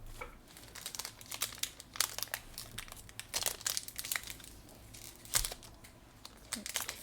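Foil wrapper of a Pokémon booster pack crinkling in the hands as it is handled and torn open, with a dense run of small crackles and a few louder crinkles.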